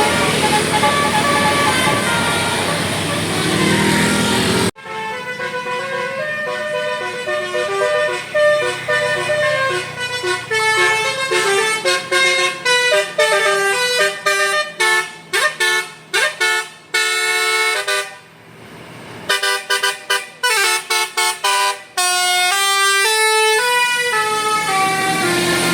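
Telolet Basuri multi-tone bus horn playing a melody of quick stepping notes. For the first few seconds it sounds over a noisy background. Then the background suddenly drops away and the horn notes ring clean, with a short break about two-thirds of the way through. The noisy background returns near the end.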